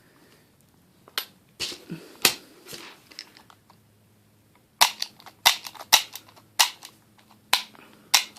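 Wingun Sport Series 701 CO2 airsoft revolver being worked by hand: a few metal clicks from the cylinder and action, then a string of about seven sharp clicks in the second half.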